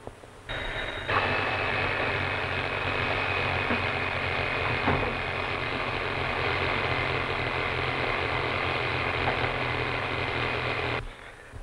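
Bell alarm clock ringing steadily for about ten seconds, starting about a second in and cutting off suddenly near the end.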